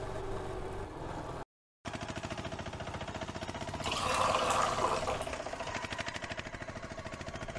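Tea poured from a metal pan through a strainer into a steel tumbler, a splashing pour lasting about a second and a half midway, over a steady hum. The sound cuts out for a moment about a second and a half in.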